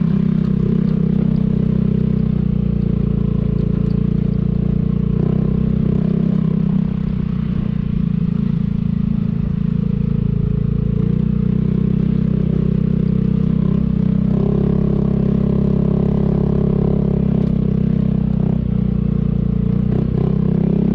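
Vespa scooter engine running steadily under way, its pitch shifting slightly a few times.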